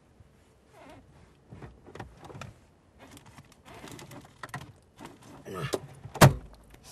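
Small handling sounds inside a car: rustling, light knocks and clicks at uneven intervals, with one sharp loud click about six seconds in.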